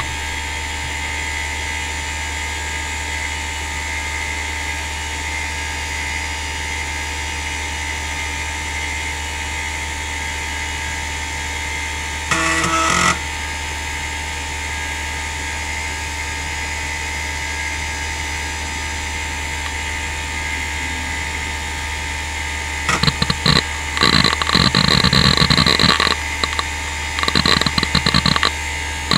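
Western Digital Caviar 31200 3.5-inch IDE hard drive (4500 rpm) spinning with a steady hum and whine, its heads seeking in a short burst of clatter about twelve seconds in. Near the end come several bursts of rapid seek chatter as the drive is read under load.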